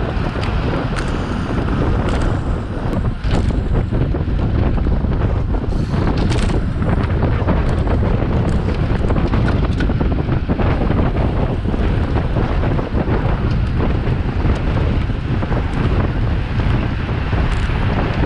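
Wind buffeting the microphone of a camera on a racing bicycle at speed: a loud, steady rush strongest in the low end, with a few brief ticks.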